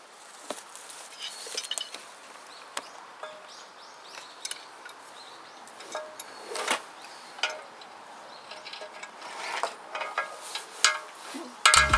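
Irregular light knocks and clinks, a dozen or so spread out, over a faint steady background hiss. Music comes in abruptly right at the end.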